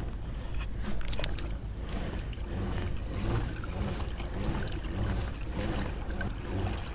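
Water swishing and lapping along the hull of a kayak moving through calm water, over a steady low rumble, with a few light clicks about a second in.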